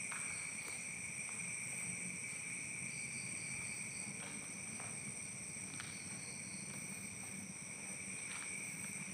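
Steady night insect chorus: several shrill high tones held unbroken, with a few faint scattered ticks.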